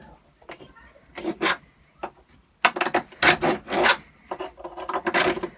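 A bolt being worked into painted bolt holes on an R2-D2 droid's leg-mounting plate to ream the paint out: rasping scrapes. There is a brief bout about a second in, then a longer stretch from about two and a half seconds in, with a squeak in it.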